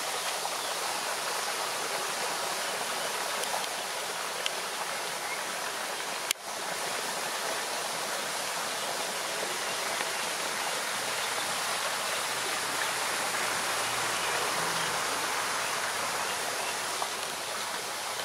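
Steady rushing of running water, with one sharp click about six seconds in.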